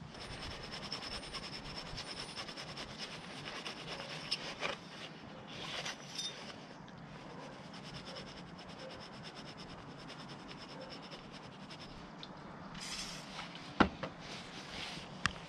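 Faint scraping and rubbing as corrosion is cleaned out of the inside of a motorbike brake caliper by hand, with a couple of sharp clicks near the end.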